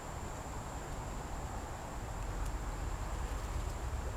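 Quiet ambience: a steady, high-pitched insect drone over a low rumble.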